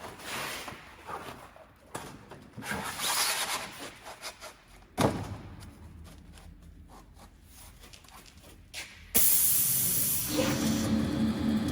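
Sanding belt slitting machine: scattered rustling and a sharp click, then about nine seconds in a sudden loud hiss starts and settles into a steady machine hum with a few fixed tones.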